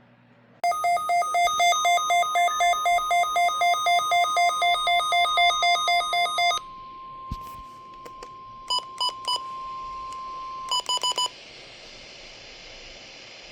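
A weather alert radio receiver's alarm beeps rapidly, about three beeps a second, for some six seconds over the steady 1050 Hz NOAA Weather Radio warning alarm tone. The alarm tone then runs on alone and cuts off about eleven seconds in, with two small groups of short beeps near that point. This is the weekly test of the public warning alarm.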